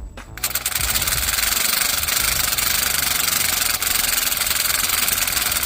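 Power tool running steadily with a fast, even rattle, starting abruptly and cutting off abruptly.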